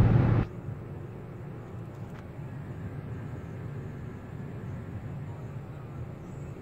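Steady road and engine noise heard inside a moving car's cabin. A louder sound at the very start cuts off abruptly about half a second in.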